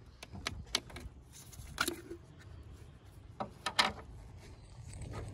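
A handful of short plastic clicks and knocks as the screw cap of a hydraulic fluid reservoir is taken off, the loudest about two seconds in and near four seconds.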